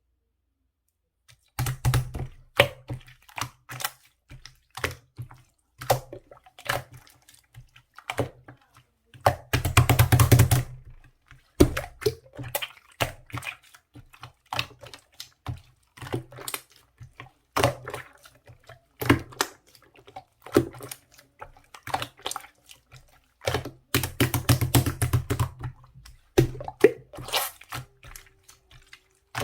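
Clear slime being kneaded and mixed with small round add-ins, making irregular sticky clicks and crackles, with dense runs of crackling about ten seconds in and again around twenty-five seconds in.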